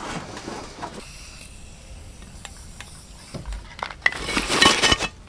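Hollow concrete block being set down and shifted on gravel: a few knocks and a gritty scrape starting about three and a half seconds in, after a quieter stretch with a few faint clicks.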